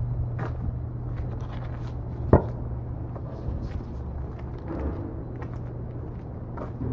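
Footsteps and scuffs on a snowy sidewalk over a steady low hum of street traffic, with one sharp click about two seconds in.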